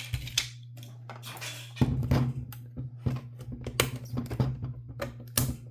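A small plastic toy and its packaging being handled: irregular clicks, taps and rustles, over a steady low hum that gets louder about two seconds in.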